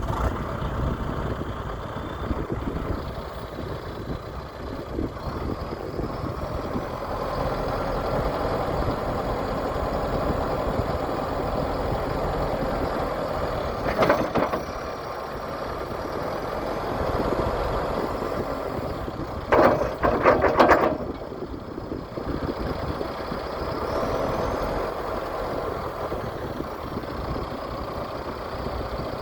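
Diesel engine of a John Deere 310SJ backhoe loader (a four-cylinder diesel) running steadily, with a short loud burst about halfway through and a louder cluster of bursts about two-thirds of the way in.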